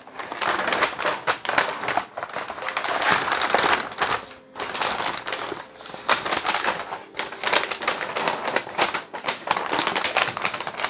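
Brown kraft packing paper rustling and crinkling as hands pull it apart and dig through it, with a brief pause about four and a half seconds in.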